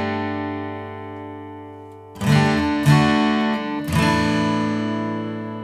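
Acoustic guitar strumming the D–Gsus2–Asus4 chords in a slow, sparse pattern. There are three strums, about two, three and four seconds in, each chord left to ring and fade.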